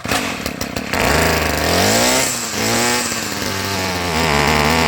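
Stihl string trimmer engine pull-started: a rattle of the pull, then the engine catches and runs, its pitch rising and falling unevenly. The tank is running dry.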